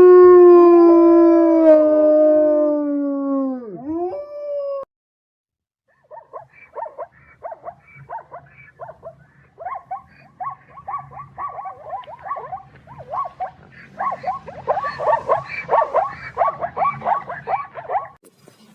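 A wolf gives one long, drawn-out howl that drops in pitch as it ends. After a short break comes a fast run of short yipping calls, several a second, growing louder toward the end.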